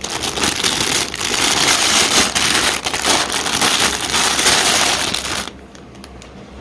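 Plastic Lego parts bags crinkling loudly as they are handled and sorted, dying down about a second before the end.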